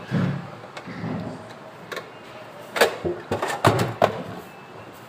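Handling noise from a sheet-metal case on a workbench. There are a few dull thuds at first, then a cluster of sharp knocks and clicks about three to four seconds in as the case is moved.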